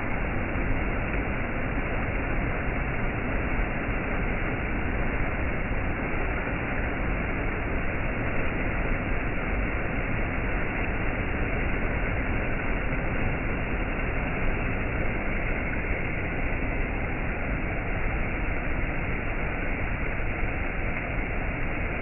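Shallow rocky stream rushing and splashing over small cascades: a steady, even wash of water noise that does not change.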